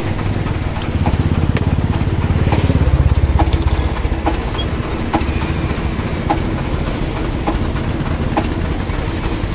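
A motor or engine running steadily with a low rumble, with light regular ticks a little more than once a second.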